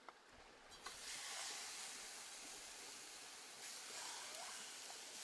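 Raw chicken pieces sizzling in a frying pan, a steady hiss that sets in suddenly about a second in, just after a light click.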